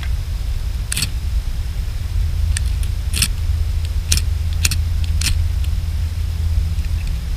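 Knife blade shaving a small stick to make kindling for a wood fire: about six short, sharp scrapes, spaced roughly half a second to a second apart. Under them runs a steady low rumble of wind on the microphone, which is the loudest sound.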